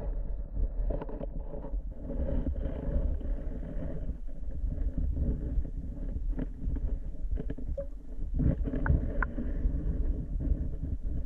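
Muffled underwater rumble and water noise as heard by a camera held below the lake surface, with a few scattered light clicks.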